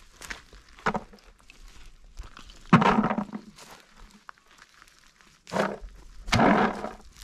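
Dry fallen oak leaves crackling and crunching as acorns are gathered by hand from the ground, with several sudden rattles of handfuls of acorns dropped into a plastic bucket, the loudest about three seconds in.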